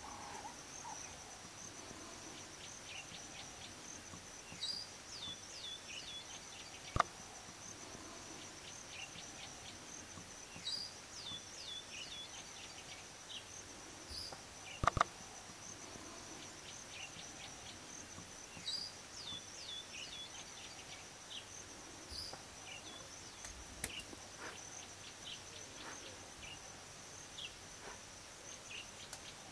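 Natural bush ambience. A steady high insect drone runs throughout, and a bird repeats a short phrase of quick descending notes several times. A sharp click sounds about seven seconds in, and a double click comes about halfway.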